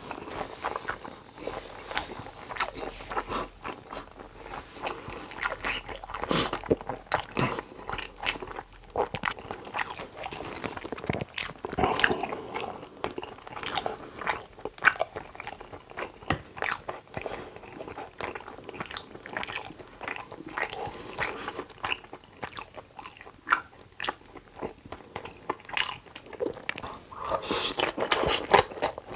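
Close-miked eating sounds: a person biting and chewing food, with irregular crunches and clicks from the mouth.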